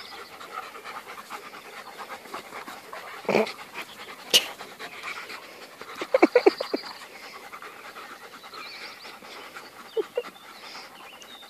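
Two Beaucerons panting hard as they play-wrestle, with a few short, louder sounds over the panting: a quick cluster of them about six seconds in and two more near the end.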